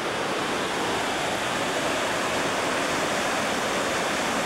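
Waterfall rushing steadily over rocks.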